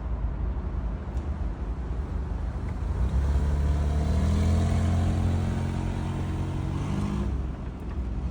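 A motor vehicle's engine running steadily, growing louder about three seconds in and dropping away about seven seconds in.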